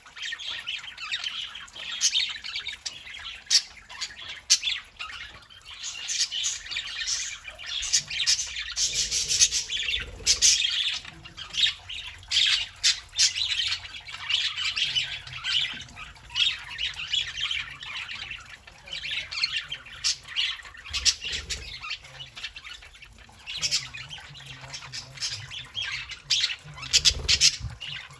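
Several pet budgerigars chattering and squawking without pause, a busy warble full of sharp clicks and chirps. A few low thumps fall in among it.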